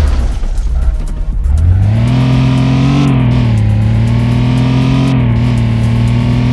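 Chevrolet Camaro engine and exhaust droning: the pitch sinks as the revs drop near the start, climbs back about two seconds in, then holds a steady cruising note with small rises and dips.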